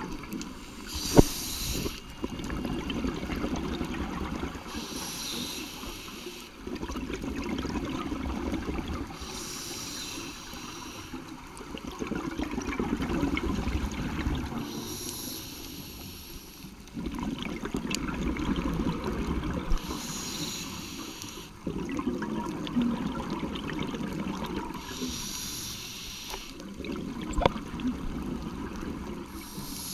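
Scuba diver breathing through a regulator underwater: a short hiss of inhalation about every five seconds, each followed by several seconds of rumbling exhaled bubbles.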